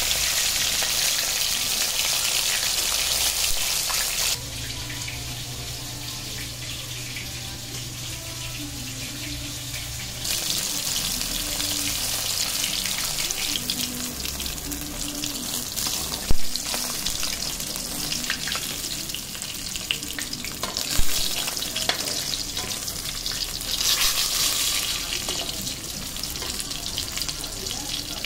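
Fish steaks sizzling as they shallow-fry in hot oil in a metal kadai. The sizzle drops lower for several seconds, then comes back. Two sharp clinks of a slotted metal spatula against the pan come as the pieces are turned.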